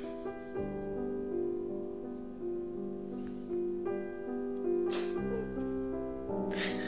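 Soft background piano music playing slow, sustained notes. Two short breathy sounds come through it, about five seconds in and near the end.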